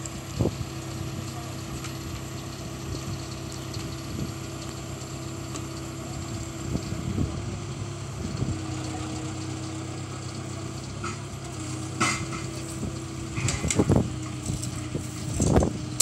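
A telehandler's diesel engine running steadily, with a few metal knocks and clanks in the last few seconds.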